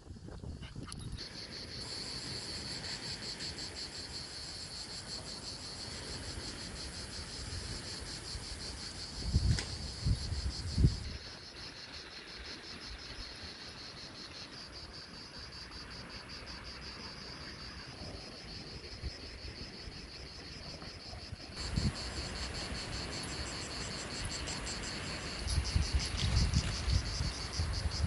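Insects chirring: a steady, high, fast-pulsing song that fades somewhat about a third of the way in and comes back stronger about three quarters of the way through. A few low bumps sound over it, the loudest about ten seconds in, with more near the end.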